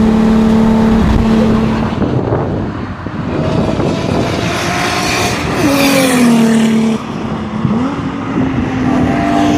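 Car engines at speed on a race circuit: a Toyota Supra's engine holding a steady note inside the cabin, then cars running along the straight, with engine notes rising and then one falling sharply in pitch about six seconds in.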